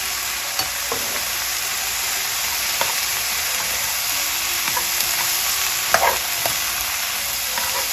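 Mixed vegetables frying in oil with oyster sauce and brown sugar, a steady sizzle, while being stirred, with a few sharp knocks of the utensil against the pan.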